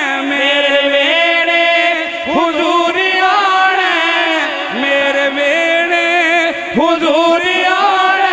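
A man singing a Punjabi naat in long, drawn-out notes with ornamented turns and bends in pitch.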